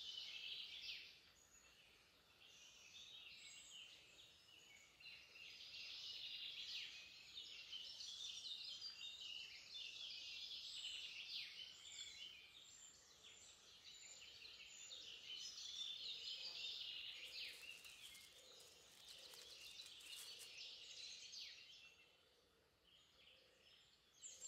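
Faint outdoor ambience of many small birds singing at once: overlapping high chirps and trills, dipping quieter briefly near the start and again near the end.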